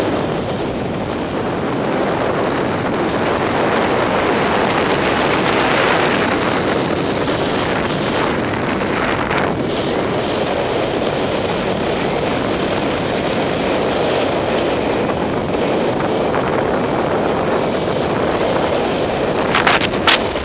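Steady rush of airflow buffeting the microphone of a camera mounted on a paraglider pilot's harness in flight. A few sharp knocks come near the end.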